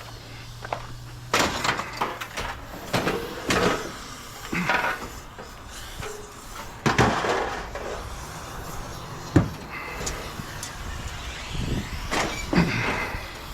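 Irregular knocks and clunks of objects being handled and set down, with a sharp bang about nine and a half seconds in.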